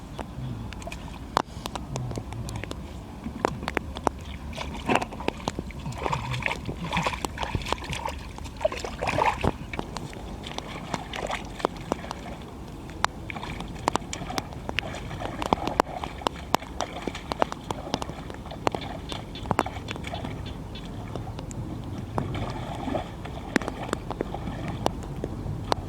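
Shallow pond water sloshing and splashing as hands work through it, with many small sharp clicks and knocks scattered throughout.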